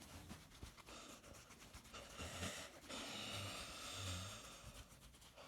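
Faint breathing and snuffling of a dog, louder for a couple of seconds in the middle.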